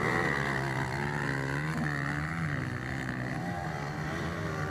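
230 cc motocross bike engines running on the track, their pitch rising and falling as the riders work the throttle through the turns.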